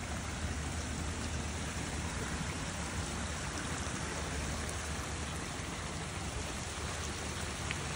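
Steady rush of running water at a koi pond, an even hiss with a low rumble beneath it.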